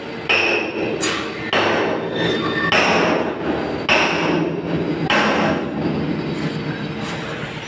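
Hammer blows on steel during a backhoe bucket repair: about six sharp strikes roughly a second apart, each ringing briefly, over a steady low hum.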